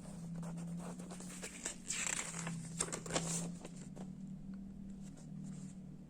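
Rustling and crinkling handling noise with a few clicks, heaviest about two to three and a half seconds in, over a low steady hum that shifts slightly in pitch.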